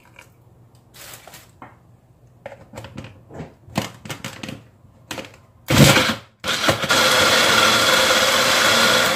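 Clicks and knocks as a small electric jar blender is handled and set on its base, then its motor runs in a short burst and, about a second later, runs steadily, grinding boiled peanuts, chillies, tomato and dates with a little water into a thick peanut sauce.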